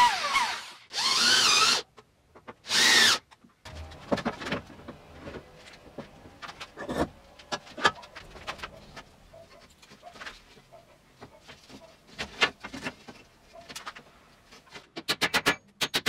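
Corded electric drill whirring in three short bursts as it bores into wood, the pitch gliding as the motor spins up and slows. Then wooden boards are knocked and shifted about, with a rapid run of clicks near the end.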